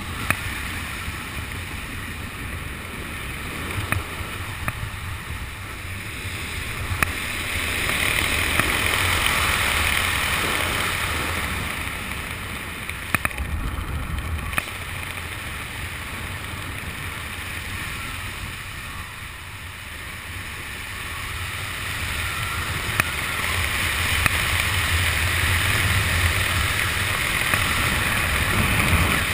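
Wind rushing over the camera microphone under an open parachute canopy, swelling louder twice and easing in between, with a few sharp clicks.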